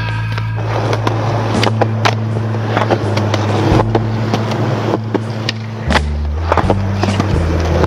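Music with sustained bass notes, over a skateboard rolling on concrete with several sharp clacks of the board.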